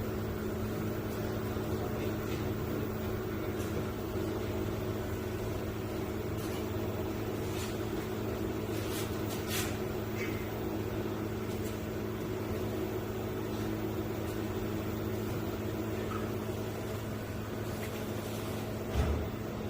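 Steady electrical machine hum with a few faint clicks about halfway through and a brief low thump near the end.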